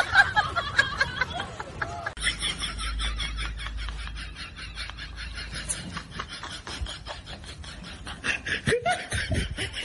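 A person laughing and snickering at the start and again near the end, with a quieter stretch of soft clicking over a low rumble between.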